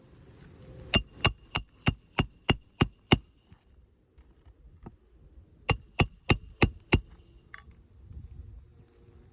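A roofing hammer striking a roof snake to drive nails in under a lifted asphalt shingle: a run of eight quick strikes with a slight metallic ring, then a pause and five more.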